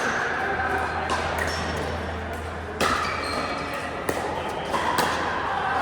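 Pickleball paddles striking the hard plastic ball: a few sharp pops about a second apart, over a steady low hum.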